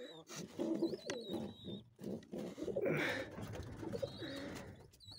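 Pigeons cooing at close range, several low coos in separate phrases, with a faint high wavering call now and then.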